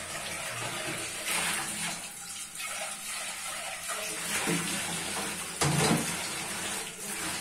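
Kitchen tap running into a stainless-steel sink while raw chicken hearts are rinsed by hand under it: a steady splashing of water, with a brief louder burst about six seconds in.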